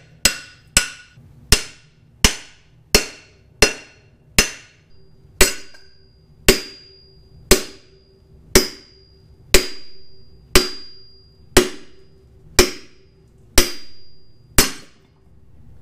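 Hand hammer striking the top of a long metal bar set into a wrecked Chrysler 413 block, driving out a jammed piston. About seventeen sharp metallic blows, each with a short ring, come quicker at first and then settle to about one a second.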